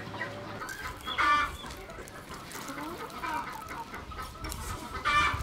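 Chickens clucking, with two short, louder calls, one about a second in and one near the end.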